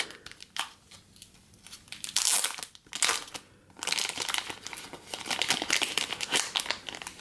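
Thin clear plastic sleeve around a stack of trading cards crinkling as it is peeled back and pulled open by hand, in irregular crackly bursts that grow busier about halfway through.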